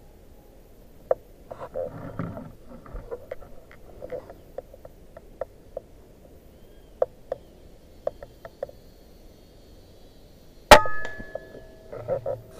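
A single shot from a PCP air rifle near the end, a sharp crack with a brief ringing after it, followed by a few small knocks. Before it only scattered faint ticks over a quiet background.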